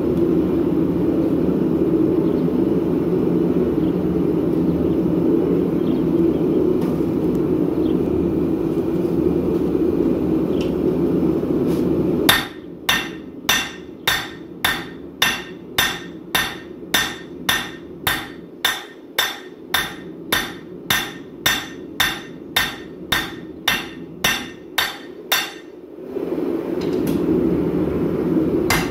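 Hand hammer striking a red-hot 5160 steel knife blade on an anvil in a steady run of blows, about two a second, about twelve seconds in, stopping near the end and starting again just before it ends. Before and after the hammering, a steady low rushing noise from a propane forge burner running.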